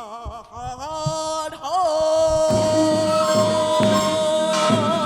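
A singer's voice with wide vibrato in a Korean wedding song, settling about two seconds in into one long held note, with drum-backed accompaniment coming in under it.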